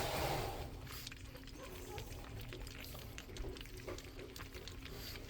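Four-week-old pug puppies grunting and smacking as they feed, with many small clicks and faint squeaks.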